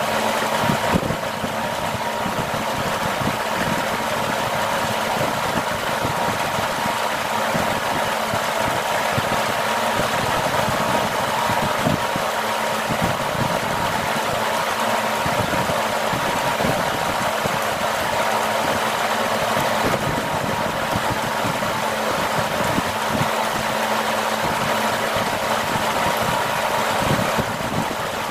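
A steady machine-like hum and hiss with a constant tone, continuous throughout, with irregular short clicks and mouth noises of eating by hand over it.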